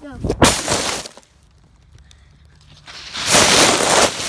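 Dry leaves rustling and crunching close up. It comes in two bursts: a short one near the start, then a longer, louder one from about three seconds in.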